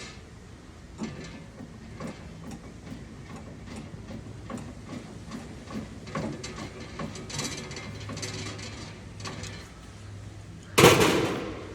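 Light clicks and scrapes of a Phillips screwdriver turning small countersunk screws into a nylon drawer slide handle, then one loud clunk near the end.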